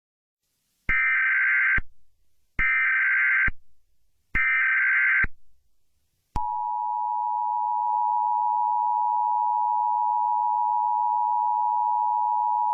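Emergency Alert System SAME header: three short bursts of warbling data tones, each just under a second long and spaced about a second apart. A little after six seconds in, the EAS attention signal starts: a steady, loud two-tone alarm that holds without a break.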